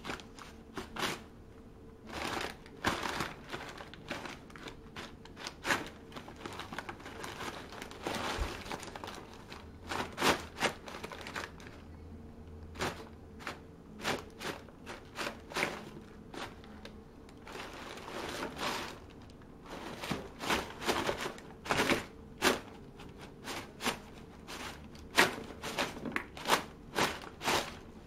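Brown kraft wrapping paper crinkling and rustling in irregular bursts as a cat paws and pushes through it in a cardboard box.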